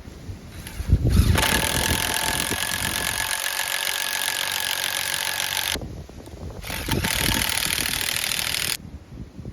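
Chainsaw running at high revs in two stretches, the first about four seconds long and the second about two, each starting and stopping abruptly.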